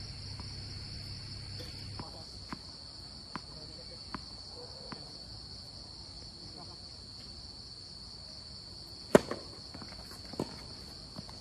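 Tennis ball bounced on a hard court five times, about one bounce a second, then a sharp racket-on-ball serve about nine seconds in, the loudest sound, followed by a bounce and a return stroke about a second later. Steady high insect trill underneath throughout.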